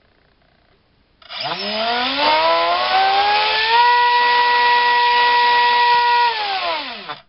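A2212 2700kv brushless outrunner motor driving a 4.1×4.1 sports propeller: it spins up about a second in with a whine that rises steeply in pitch, holds steady for a few seconds, then winds down near the end. The owner is sure the noise comes from the motor itself.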